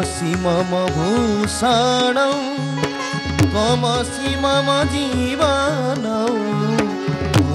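Odissi classical dance music: an ornamented melody with gliding, wavering notes over a steady drone, with drum strokes keeping the rhythm.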